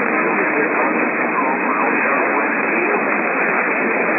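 Radio receiver static: a steady, loud hiss of band-limited noise with the narrow, muffled tone of a radio's audio and no distinct events.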